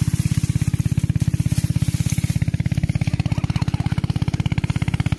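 A small engine running steadily at an even speed, with a fast, regular putter.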